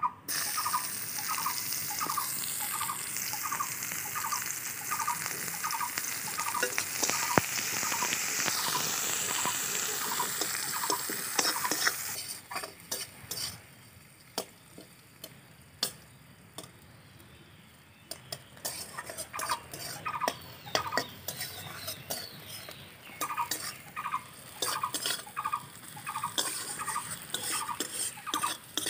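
Chopped onion sizzling in hot mustard oil in an aluminium kadai, stirred with a metal spatula that scrapes and taps the pan. The loud sizzle stops suddenly about twelve seconds in. After a quieter stretch, irregular spatula scrapes and clicks return.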